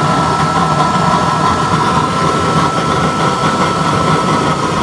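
12-volt high-speed blower running steadily with a thin whine, forcing air into a used-oil stove's burner that is burning strong with a blue flame under a pan.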